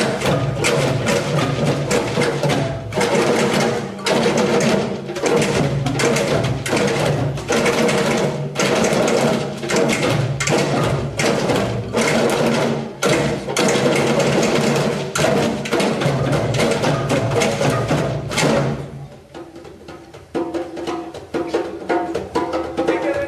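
Children's ensemble of djembes and calabashes playing a fast, driving rhythm together. It stops about 19 seconds in, and after a short lull a lighter pattern with pitched wooden notes, from a balafon, begins.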